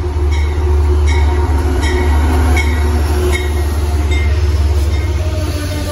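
An Amtrak locomotive-hauled train with stainless-steel coaches passing close by at speed. It makes a heavy, steady rumble, with a short ringing repeating about every three-quarters of a second until about three and a half seconds in.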